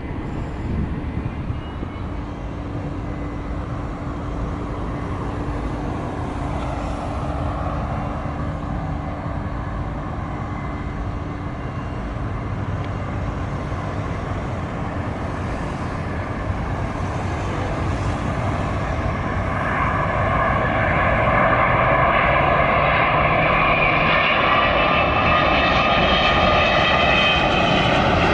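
Boeing 787-10 jet airliner on final approach, its engine noise growing as it nears. The last third of the stretch adds a louder, rising whine of engine tones.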